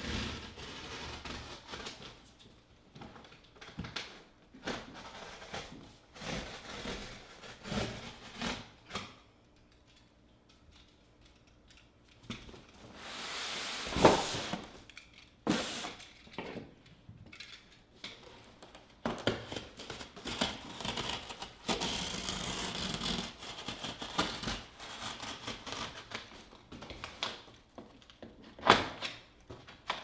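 Utility knife slicing through a corrugated cardboard box along its cut line, in scraping strokes mixed with knocks and rustles of the box being handled. One longer, louder slice builds and peaks about fourteen seconds in.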